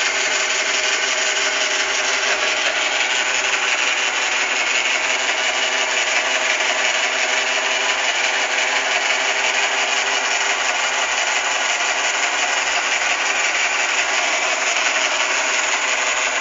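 Sharp Cocorobo robot vacuum running steadily, its motor and brushes making a constant whirring noise as it drives back to its charging base after finishing cleaning.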